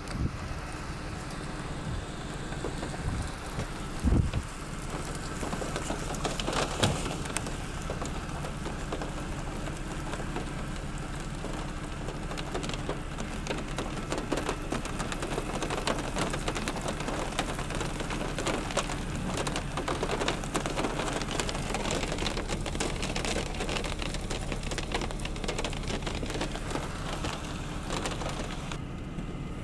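Rain falling under a severe thunderstorm, a steady patter with denser crackle in the middle, and two short low thumps about four and seven seconds in.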